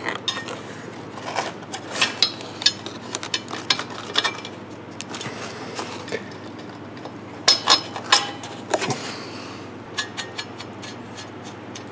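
Metal clinks and clatter as an exhaust flange, its gasket and flange bolts are handled and fitted by hand: irregular clicks throughout, with a few louder clusters of knocks.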